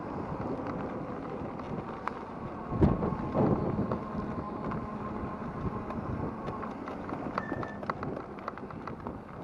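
Riding noise from a Rize Blade 2 electric bike: wind buffeting the microphone with a louder gust about three seconds in, many small clicks and rattles, and a faint steady whine through the middle.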